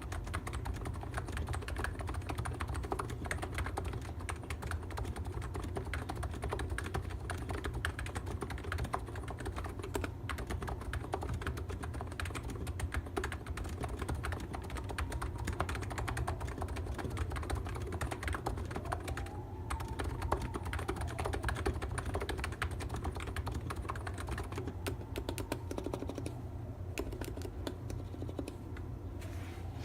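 Continuous fast typing on an ABKO Hacker K935P v2 electrostatic capacitive (non-contact) keyboard: a dense, even stream of key clicks.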